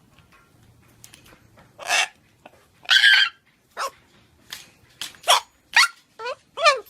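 A series of about eight short barks, coming quicker toward the end.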